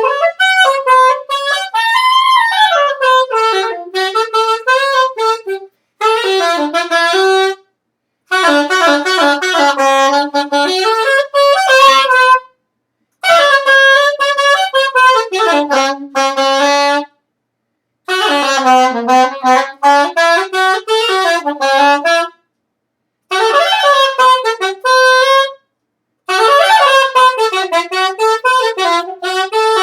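Unaccompanied saxophone improvising freely, with no set beat: phrases of held notes, bends and quick runs, broken by about six short pauses for breath.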